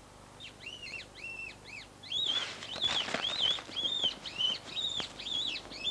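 An animal giving a rapid run of high-pitched squealing calls, each rising and falling, about three a second. Rustling or scuffling noise sounds under the calls from about two seconds in.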